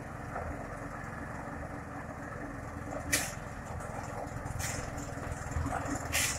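An engine idling steadily with a low hum, broken by three short hisses about three, four and a half, and six seconds in.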